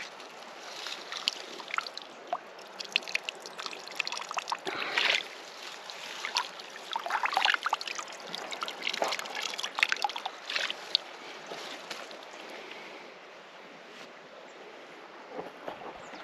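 Water trickling and sloshing, with irregular small clicks and knocks scattered through it.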